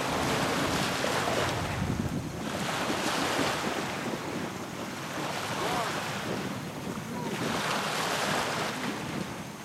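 Small waves lapping and splashing at the shoreline, with wind blowing on the microphone; the noise swells and eases every couple of seconds.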